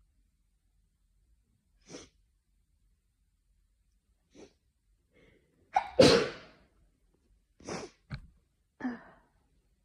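A person sneezing in a hay fever attack: brief breathy sounds about two and four seconds in, one loud sneeze about six seconds in, then three shorter breathy sounds close together near the end.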